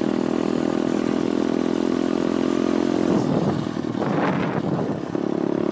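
Pit bike's motor running at a steady pace while riding. About three seconds in, its even hum turns rougher and noisier for roughly two seconds, then steadies again near the end.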